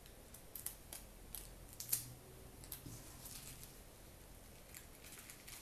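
Faint crinkling and clicking of sticky tape and a thin plastic trash bag being handled, with a few sharp crackles, the loudest about two seconds in.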